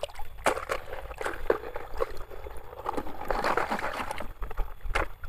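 Scattered clicks and light knocks of plastic toys being dug out of and lifted from a toy dump truck's load, over a soft scraping and shifting noise.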